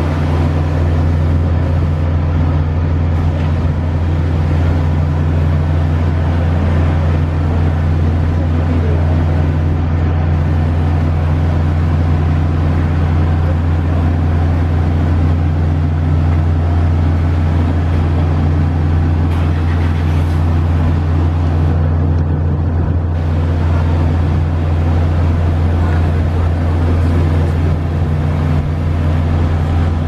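Diesel engine of a heavy work vehicle running steadily, a loud low hum that holds the same pitch throughout.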